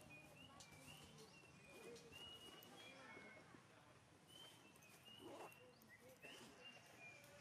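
Faint outdoor ambience: short, high chirps repeating every second or so, with faint low voices underneath.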